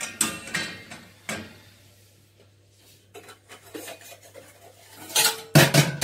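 Stainless steel plates and a steel bowl clanking against each other and the wire rack of a mini dishwasher as they are loaded. A cluster of clanks in the first second or so, a few light clicks midway, and a louder clatter with a brief metallic ring near the end.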